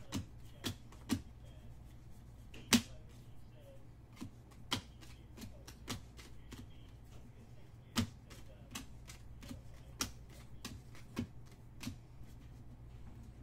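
Irregular sharp clicks and taps as trading cards are flipped through and set down on a table while packs are opened. The loudest snaps come about three seconds in and again about eight seconds in, over a faint steady low hum.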